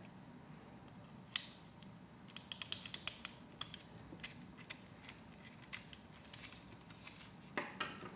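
Small plastic Lego Technic pieces clicking and tapping as they are handled and fitted together: a single click, then a quick run of clicks, scattered taps, and a brief rattle of pieces near the end.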